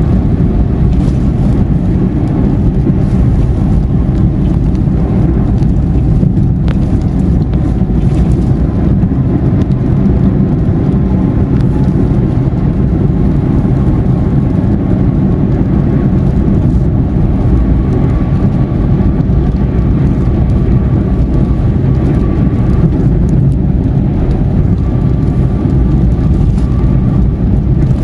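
Steady road and engine noise of a car cruising on a highway, a constant low rumble with no sudden events.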